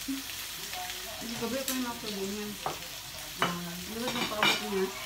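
Food sizzling in a frying pan on a tabletop gas burner, with a few sharp clicks of utensils against the pan.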